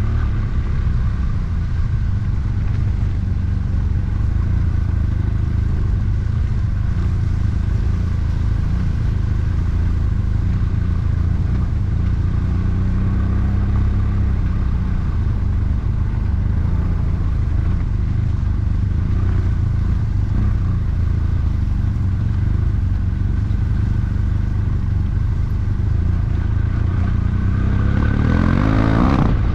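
BMW F800GT motorcycle's parallel-twin engine running at a steady pace under way, with its revs climbing sharply near the end.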